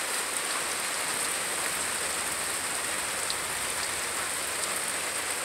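Steady rain falling: an even hiss with a few faint scattered drop ticks.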